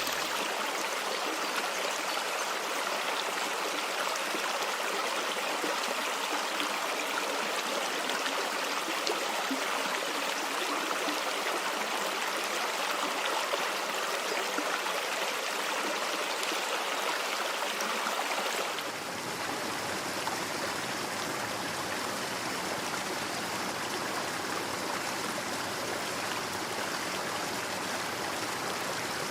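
A stream running steadily, a continuous rushing and trickling of water. About two-thirds of the way through it switches abruptly to a slightly quieter, deeper water sound.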